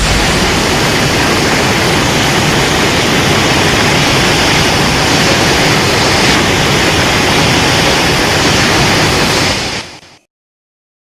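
Godzilla atomic breath sound effect: the beam as a loud, steady rushing hiss that fades out quickly near the end.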